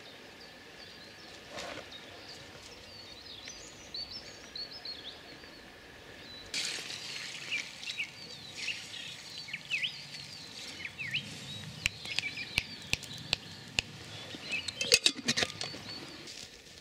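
Wild songbirds chirping and calling, the calls growing louder and busier about a third of the way in. Near the end, a run of sharp clicks and taps.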